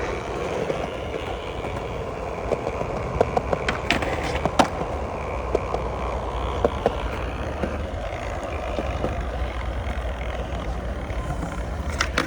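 Skateboard wheels rolling steadily with a low rumble, broken by a few sharp clacks a few seconds in and again near the end.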